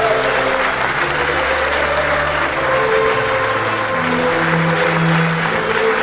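Theatre audience applauding steadily at a curtain call, with held instrumental music notes playing underneath the clapping.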